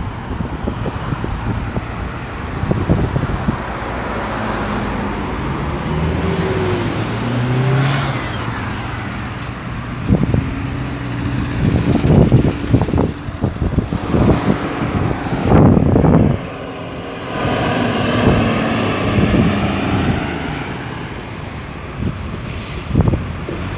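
Road traffic: cars and other vehicles passing one after another, their engines rising and falling in pitch as they slow and pull away.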